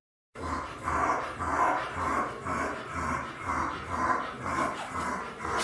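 Bulldog's stridor: loud, noisy breathing in quick, even pulses of about two a second, the sign of an airway obstructed by an elongated soft palate.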